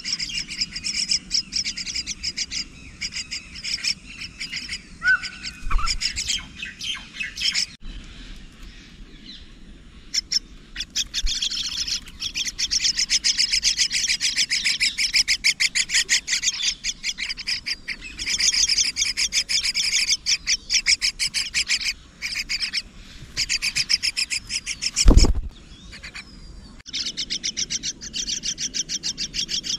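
Myna chicks in the nest chirping in bouts of fast, repeated raspy calls, with short lulls between bouts. A single loud thump comes about 25 seconds in.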